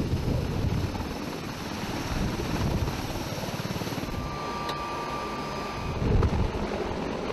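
Mil Mi-26 heavy-lift helicopter taking off and climbing away, its eight-blade main rotor beating rapidly and steadily over the turbine noise. A thin steady whine sounds for about two seconds in the middle, and the beat grows louder near the end.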